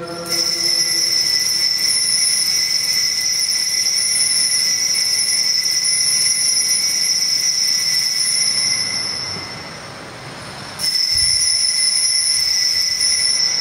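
Consecration bell ringing continuously as the chalice is raised at the elevation. It gives a steady, high, shrill ring that fades out about nine seconds in, then is rung again briefly about eleven seconds in, as the priest bows after setting the chalice down.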